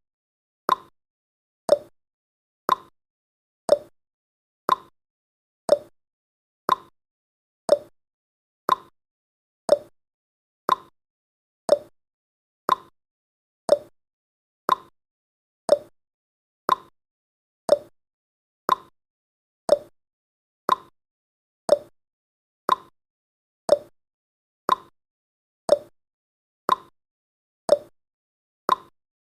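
Countdown timer's clock-tick sound effect: a short, sharp tick once a second, alternating higher and lower in pitch like a tick-tock.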